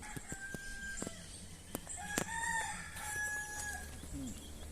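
A rooster crowing: one drawn-out call that rises, arches and holds for about two seconds in the middle, with shorter calls around it and a few sharp clicks.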